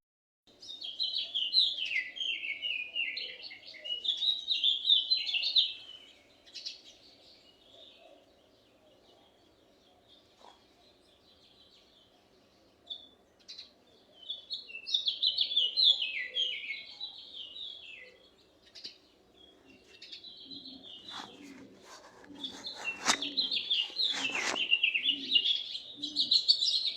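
Songbird singing in long phrases of rapid, falling chirps, with pauses between phrases. Low, evenly repeated pulses join near the end.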